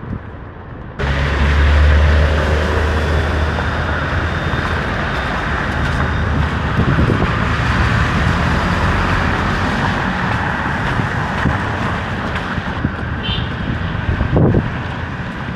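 City street traffic: a steady noise of passing motor vehicles that starts suddenly about a second in, with a low engine rumble for the first few seconds and a short low thump near the end.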